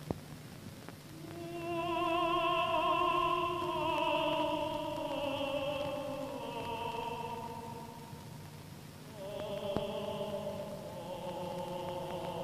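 Film score: a singing voice holding long, slow notes with vibrato, entering about a second in, falling away around eight seconds and coming back about a second later.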